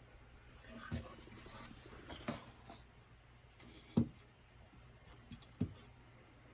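Faint handling noise: soft rustling with a few light taps and knocks, the loudest about four seconds in.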